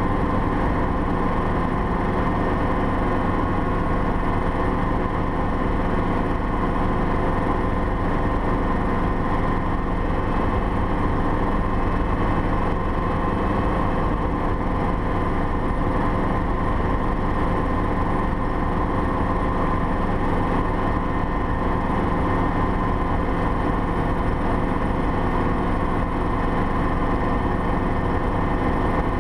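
Schweizer 300CB helicopter in steady flight, heard from inside the cockpit: its four-cylinder Lycoming piston engine and rotors running at a constant pitch and level.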